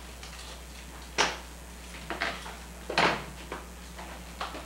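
Handling noise: about five short knocks and clunks of boxes and toys being moved about, the loudest about three seconds in.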